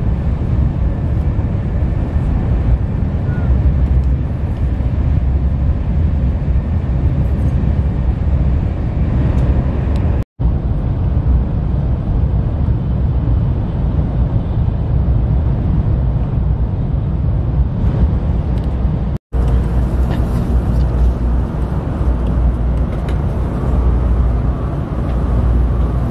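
Steady low rumble of a Shinkansen bullet train running at speed, heard from inside the passenger cabin. The sound cuts out for an instant twice.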